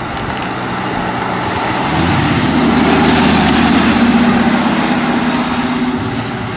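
Lamborghini Gallardo V10 engine running under load as the car drives by and pulls away; the engine note steps up about two seconds in, is loudest in the middle and eases off near the end.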